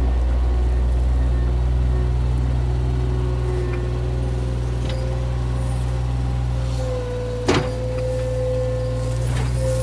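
Skid-steer loader's engine running steadily under load as it raises and tips its bucket, with a steady whine joining the engine about halfway through and one sharp clank about three-quarters of the way in.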